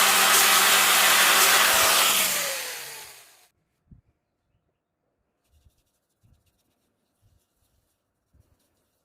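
Wood lathe's electric motor running steadily with a loud hiss, then switched off about two seconds in and winding down over a second or so, falling in pitch until it stops. A few faint knocks follow.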